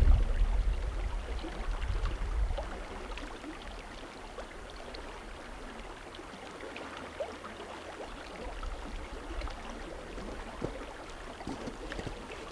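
A brook running: a steady rush of flowing water with small scattered plinks and trickles. A low hum fades away over the first couple of seconds.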